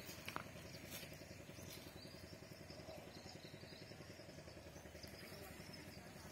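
Faint, steady engine running with a rapid, even pulse, with a single sharp click just after the start.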